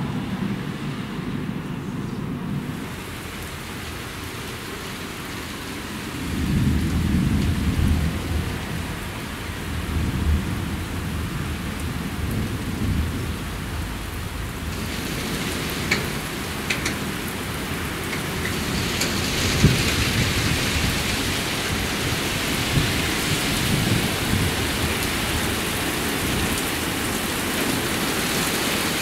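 Thunderstorm: rolls of thunder rumbling under steady rain, the loudest about six seconds in. From about halfway the rain grows heavier and hisses more strongly.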